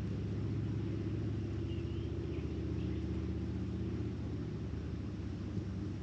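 A steady low engine rumble with an even hum, like a motor vehicle running, easing off slightly toward the end.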